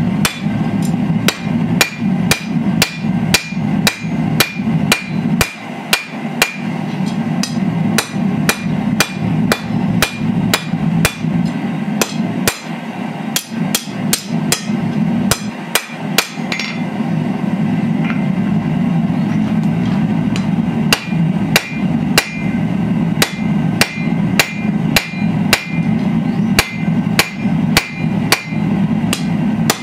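Hand hammer striking red-hot steel on an anvil in a steady rhythm, about two to three blows a second, each with a short metallic ring. The blows stop for a few seconds after the middle, then resume, with a steady low hum underneath throughout.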